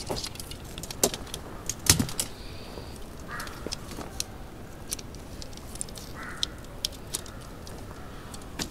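Segmented tent poles clicking and clinking as they are handled and fitted together, in scattered sharp clicks, the loudest about two seconds in.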